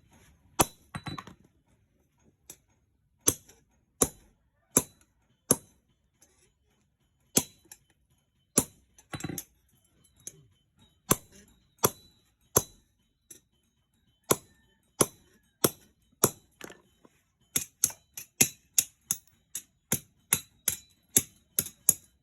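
Hammer tapping on metal: sharp, bright clinks with a short ring, spaced unevenly with a few pauses, then coming quicker, about two a second, near the end.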